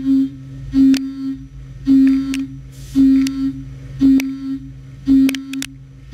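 Haas UMC-750 five-axis mill's end mill cutting the workpiece on a Waveform roughing toolpath. A humming cutting tone swells for about half a second roughly once a second, each swell starting with a sharp click, over the machine's steady lower hum.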